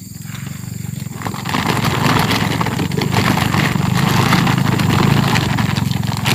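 Steady low rumble of wind buffeting the microphone, with rustling and clattering that builds from about a second in as duku fruits are tipped from a bucket into a woven plastic rice sack.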